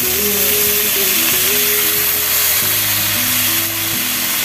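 Washed, chopped mustard greens tipped into hot oil in a steel wok, setting off a loud, steady sizzle that starts suddenly. Background music plays under it.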